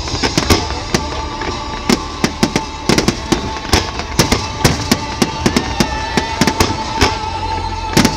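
Fireworks display: a rapid, irregular string of sharp bangs and crackles from shells bursting, several a second.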